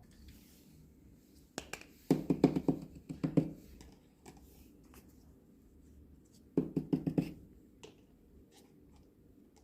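Small miniature toy kitchen pieces being handled, giving two quick runs of light clattering taps, the second shorter.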